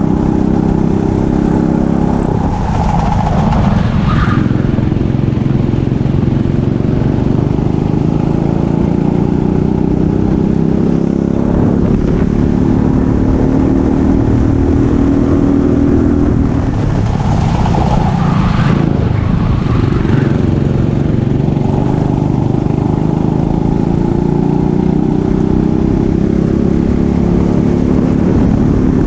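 Go-kart engine at racing speed, its pitch climbing slowly through two long accelerations. It drops sharply twice, about two and a half seconds in and again around seventeen seconds, where the driver lifts or brakes for a corner before accelerating again.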